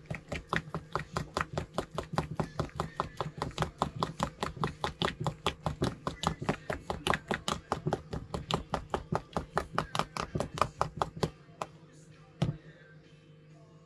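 A metal teaspoon whipping salted pike roe in a small bowl, clicking against the bowl about five times a second. The beating stops about eleven seconds in, followed by one louder knock about a second later.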